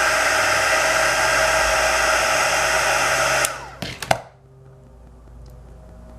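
Heat gun blowing steadily, a loud rush of air with a fan whine, softening the adhesive under a cracked iPhone screen. About three and a half seconds in it is switched off and winds down, with a few clicks just after.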